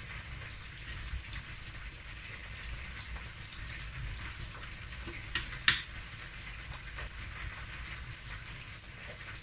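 Fish frying in hot oil, a steady sizzle and crackle like rain, with a few sharp taps, the loudest just past halfway.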